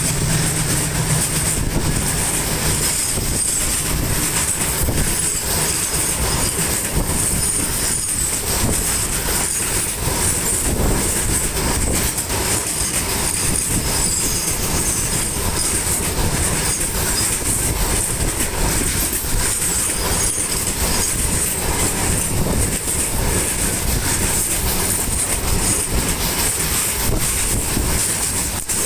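Covered goods wagons of a diesel-hauled freight train rolling past close by: a steady rumble and clatter of wheels on the rails, with a steady high-pitched hiss above it.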